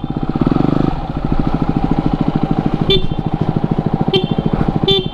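Yamaha WR250R's single-cylinder four-stroke engine idling steadily, with a brief rise in engine note about half a second in. A few short high chirps sound over it near the end.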